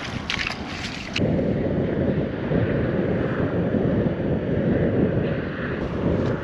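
Wind buffeting the microphone: a low, even rush that gets louder about a second in and stays loud. Before that come a few short scrapes and knocks, from an ice scoop clearing slush and ice chips out of a fishing hole.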